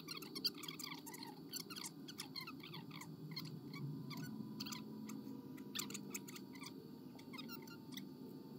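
Hot glue gun being squeezed: faint, rapid squeaks and clicks from the trigger and the glue stick feeding through, over a low steady hum.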